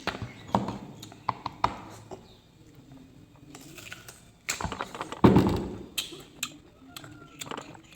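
Eating and food-handling noises: scattered small clicks, taps and knocks, with a louder noisy burst about five seconds in.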